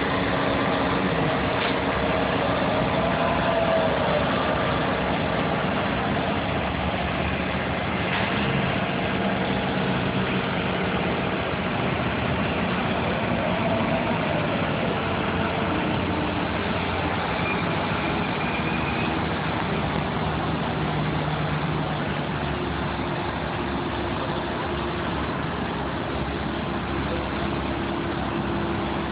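Heavy diesel engine of construction equipment running steadily, with its tone shifting in pitch now and then.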